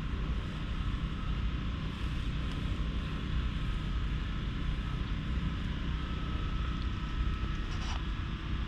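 Steady low outdoor rumble with a hiss above it, the kind wind on the microphone and far-off traffic make, with no clear single event.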